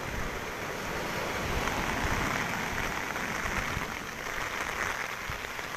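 Rain falling steadily, mixed with rough sea surf breaking and washing ashore as a storm comes in.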